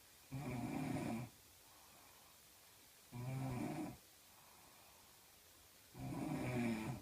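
A woman snoring in her sleep: three low-pitched snores, each about a second long, roughly three seconds apart.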